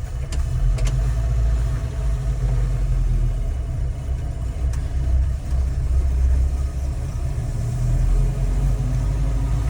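The 1965 Volvo 122S's B18 four-cylinder engine running steadily in first gear as the car pulls away after a cold start, a deep, even rumble. A few light clicks come near the start and again around the middle.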